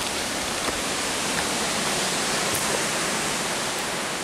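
Steady rush of strong wind through woodland trees, with a few faint pops from a wood campfire burning close by.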